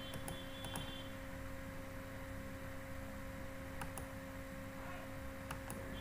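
Steady electrical hum of two low tones, with a handful of faint computer mouse clicks scattered through.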